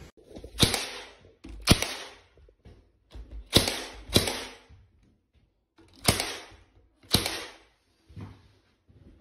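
Nail gun firing into thin wooden trim strips held against a ceiling: six sharp single shots at uneven intervals, roughly a second or two apart, and a fainter one near the end.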